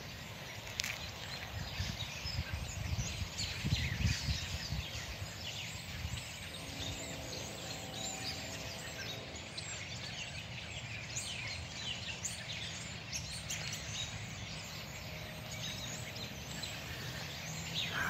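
A flock of many small birds chirping together in bare trees: a dense, continuous chatter of short overlapping chirps over a low outdoor rumble.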